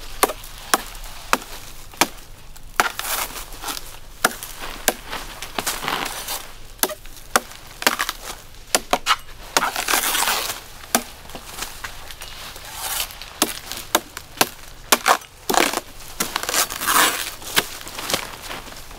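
A blade chopping at coconut in a quick, irregular run of sharp strikes, with a couple of longer rustling swishes between them, around ten seconds in and again near the end.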